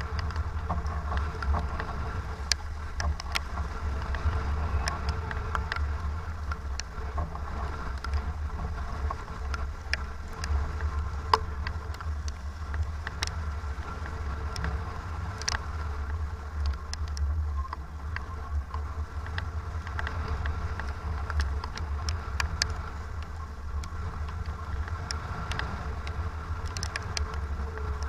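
Strong wind buffeting the microphone aboard a racing sailboat in about 25 knots of wind, a steady low rumble with scattered sharp ticks.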